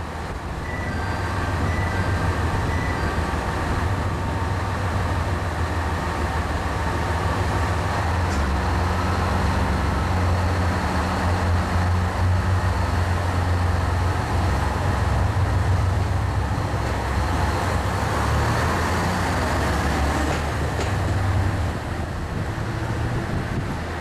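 KiHa 187 series diesel railcar's engines running, a steady low drone that builds up in the first couple of seconds and holds, with wind noise.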